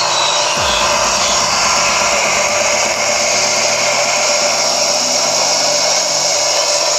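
Homemade bottle vacuum cleaner's 12 V cooling fan running, a steady whirring rush of air, over electronic dance music with a bass line and kick drums.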